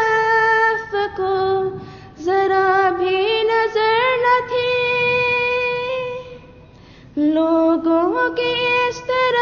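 A single high voice singing a slow, unaccompanied melody with long held notes that slide and waver between pitches. It breaks off for about a second a little past the middle, then carries on.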